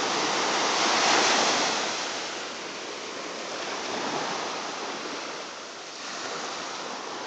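Small ocean surf breaking and washing up a sandy beach, swelling about a second in and easing off, with another wave rushing in near the end.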